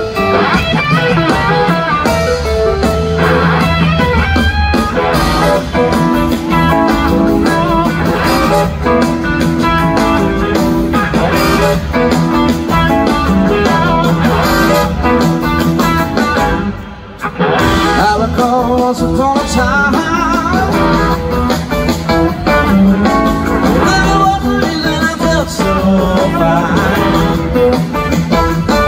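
Live blues-rock band playing, with electric guitar over bass and drums, heard loud through a concert-goer's recording. The band drops out for a moment about two-thirds of the way through, then comes back in.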